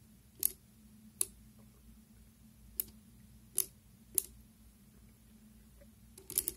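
Soroban beads pushed with a fingertip, clicking sharply against the rod and frame. There are five separate clicks at uneven intervals, then a quick cluster of clicks near the end.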